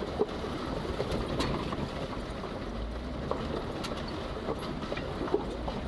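Jeep Wrangler driving off-road: a low engine rumble under a steady rattling noise, with scattered clicks and knocks, one sharp knock a little after the start and another near the end.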